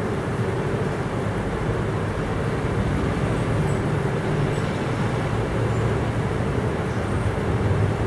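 A steady low rumble, like a passing vehicle, with no speech over it.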